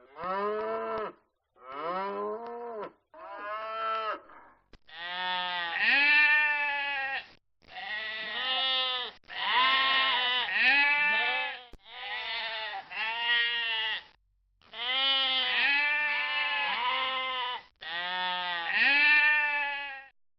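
A flock of sheep bleating. Many wavering calls overlap in bursts of one to three seconds with short gaps between, sparse at first, then dense from about five seconds in.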